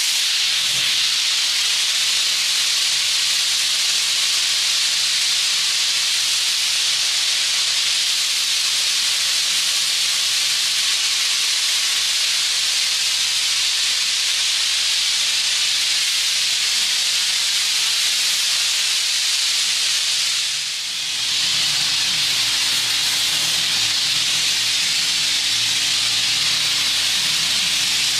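Pressure-washer lance spraying foam and water onto a truck cab: a loud, steady hiss that dips briefly about twenty seconds in, with a faint steady hum joining after.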